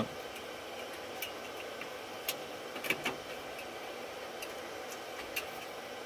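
Steady whir of rack servers' cooling fans, with a handful of light metallic clicks as a screw is worked into a rack rail, catching and slipping out on threads that may be buggered up.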